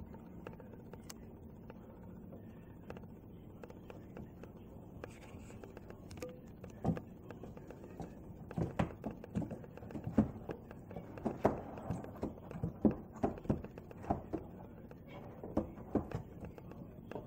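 Crow tapping on a skylight and roof, heard from inside below the glass: a run of irregular sharp taps that starts about seven seconds in and thickens in the middle.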